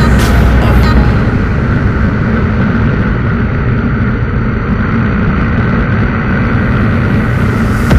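KTM RC390 on the move at speed: a loud, steady rush of wind over the microphone with the single-cylinder engine running under it.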